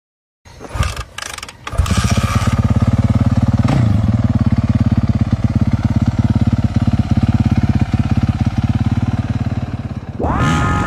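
Supermoto motorcycle engine starting. After a second or so of irregular sputters it catches and settles into a steady, fast-pulsing idle. Music comes in near the end.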